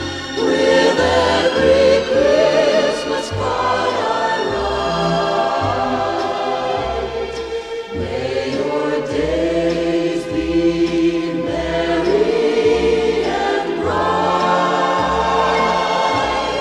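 Background music: a choir singing long held chords over a low bass line.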